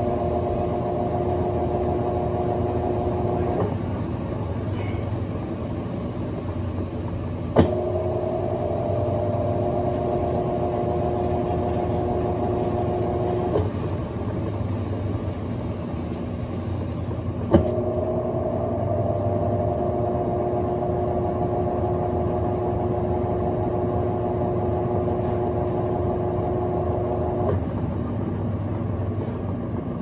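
Colormaq LCA12 top-loading washing machine spinning between rinses. Its motor hum cuts out about four seconds in, comes back with a sharp click, runs about six seconds, cuts out again, then restarts with another click and runs about ten seconds, while a low rumble of the turning basket goes on throughout.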